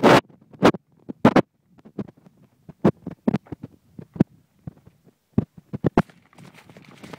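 Irregular knocks and thumps, about a dozen, the loudest right at the start: the footsteps of the person filming and knocks on the handheld camera as they walk along a woodland path. A faint rustle comes in near the end.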